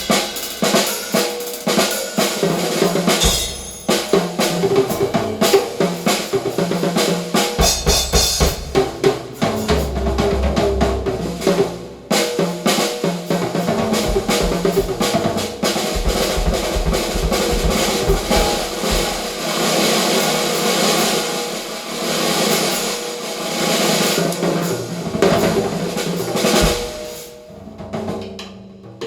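A recorded drum and percussion track played through a home hi-fi loudspeaker system with Heil ESS AMT-1 ribbon tweeters and REL S/812 subwoofers. Fast snare and drum-kit hits are joined at times by deep bass-drum swells, and the playing thins out near the end.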